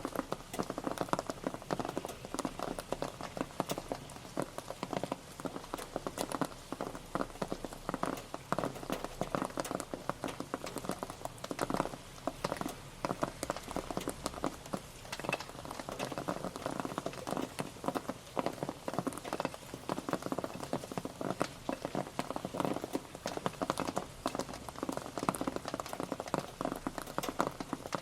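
Rain pattering steadily, a dense, unbroken spatter of drops striking a surface.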